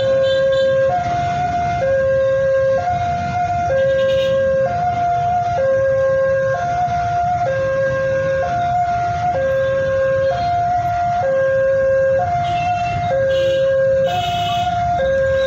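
Railroad level-crossing alarm sounding its two-tone electronic warning, alternating between a lower and a higher tone about once a second, signalling that a train is approaching and the barrier is closed. Engines of waiting motorbikes and cars run underneath.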